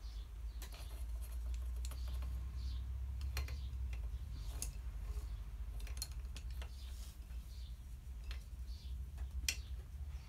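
Scattered light clicks and taps, a dozen or so at irregular intervals with the sharpest about nine seconds in, over a low steady rumble.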